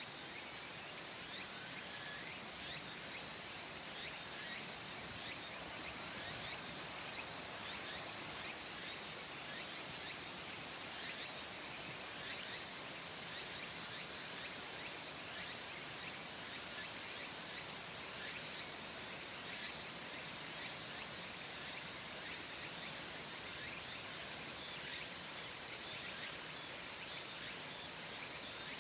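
Tsukutsuku-boshi cicada (Meimuna opalifera) singing: steady high-pitched chirring made of quick repeated pulses.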